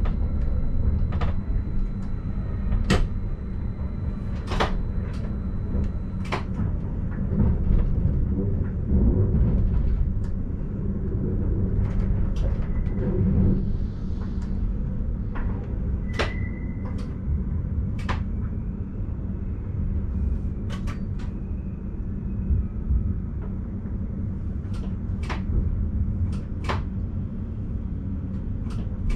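Inside the driver's cab of a Stadler RABe 515 'Mutz' electric multiple unit rolling slowly over points into a station: a steady low rumble with irregular sharp clicks and knocks. A brief high squeal comes twice around the middle.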